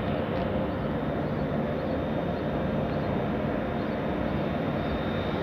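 Electric locomotive of a Railjet train running: a steady hum with a constant whine over a rumbling noise.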